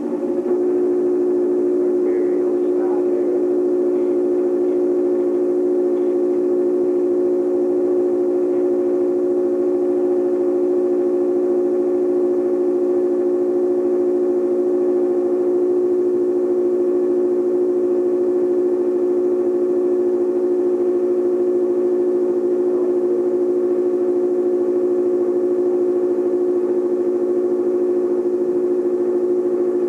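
Steady mechanical hum with several held tones, unchanging throughout: the running sound of an 8mm film projector during transfer of a silent home movie.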